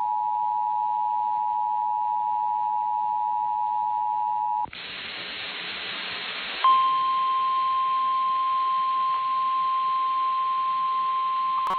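Emergency Alert System attention signal: two steady tones sounded together for about four and a half seconds, then about two seconds of static hiss, then a single, slightly higher steady tone, the weather-radio warning alarm tone, announcing an urgent tornado warning.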